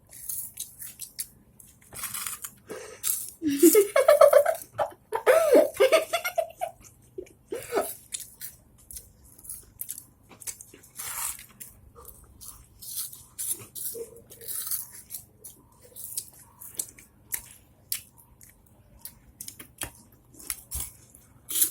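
Chips being crunched and chewed: a run of short, crisp crunches throughout, with a girl's high voice rising in pitch a few seconds in.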